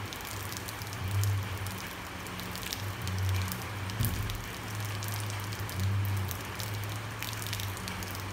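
Steady rain falling on a street and rooftops, with many individual drops ticking close by. A low hum swells and fades underneath, and a single knock sounds about four seconds in.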